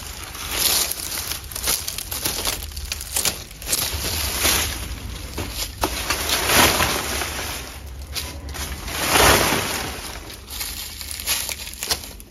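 Leafy vines and large green leaves rustling and crackling as they are pulled, cut and handled, in several loud swells of noise.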